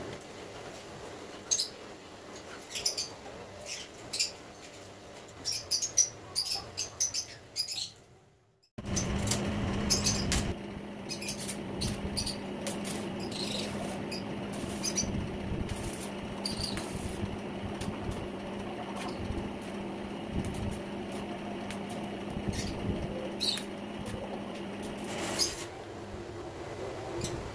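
Small birds chirping in short, high calls for about eight seconds. Then a stick arc welder crackles with a steady low hum as it welds a steel mesh cage frame, stopping about two seconds before the end.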